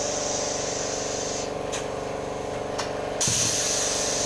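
Pneumatic bag screen-printing machine running with a steady mechanical hum and a hiss of air. The hiss drops back for a moment with a couple of light clicks, then about three seconds in there is a louder rush of air as the air cylinders move the print head.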